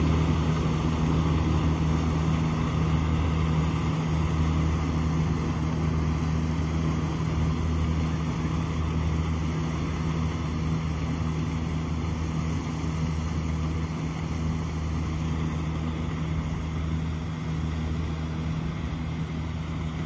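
Kubota DC-70G PRO rice combine harvester's diesel engine and threshing machinery running steadily under load while harvesting. The sound slowly fades as the machine moves away.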